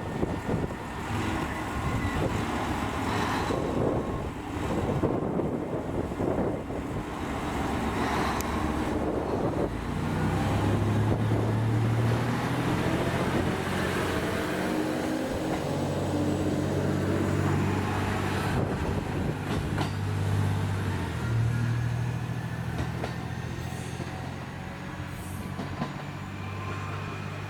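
Train at a station platform: rumbling running noise for the first several seconds, then from about ten seconds in a steady low drone from the train, with faint gliding tones over it for a few seconds.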